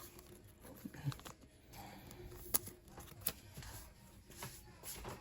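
Pokémon cards and their torn pack wrappers being handled and tidied up: scattered light taps and faint rustling, with the sharpest tap about two and a half seconds in.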